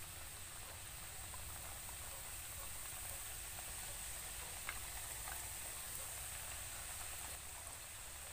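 Freshly added wonton-skin strips frying in hot oil in a wok over medium-low heat: a steady, gentle sizzle with a couple of faint pops around the middle.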